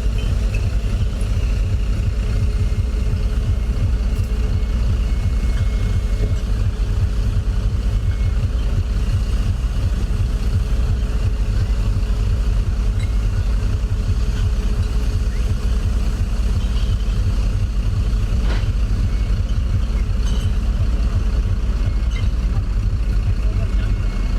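Steady low rumble of a vehicle engine running, with faint steady whining tones over it and one sharp click about eighteen seconds in.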